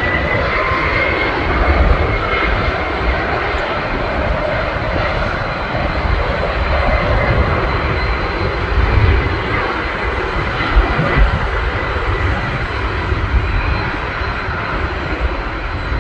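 Jet aircraft taking off: a loud, steady engine roar with a thin high whine running over it.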